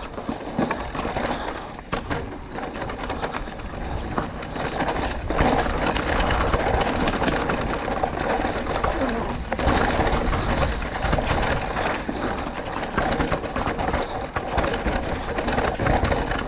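Electric mountain bike riding down a rough trail: tyres rumbling over dirt and rocks, with the frame and chain rattling in quick irregular knocks. It gets louder about five seconds in.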